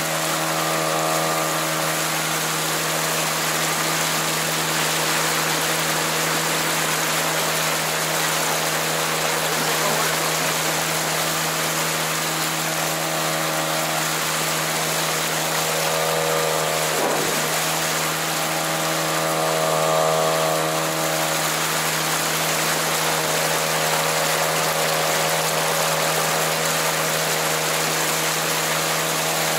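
Mercury 3.3 two-stroke outboard motor running at a steady speed, a new engine being run in. It holds one pitch with a slight swell about two-thirds of the way through.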